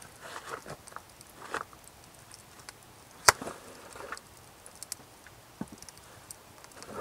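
Handling noise from a canvas food bag and its twine being untied and opened on a wooden bench: cloth rustling with light knocks, and one sharp click a little past three seconds in.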